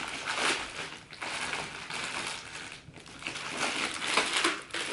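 Plastic roll-up vacuum storage bags crinkling and rustling as they are handled, with a couple of short pauses.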